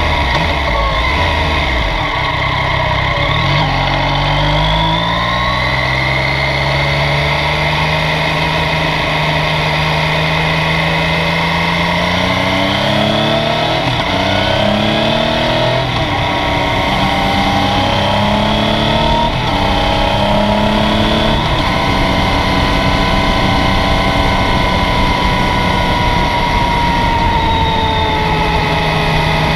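Yamaha Tracer 900's 847 cc inline three-cylinder engine under way. Its revs rise several times, dropping back in between, and then hold fairly steady near the end.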